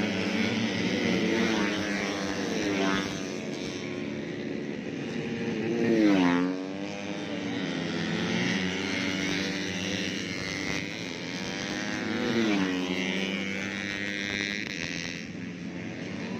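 Tuned 130cc four-stroke underbone racing motorcycles running at high revs past the track side, a steady engine drone with the pitch swooping down as bikes go by, loudest about six seconds in and again near twelve seconds.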